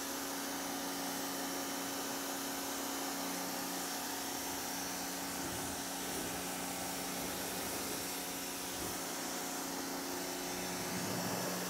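1800 W TEANDE electric pressure washer running steadily: its electric motor and pump hum under the even hiss of the high-pressure water spray.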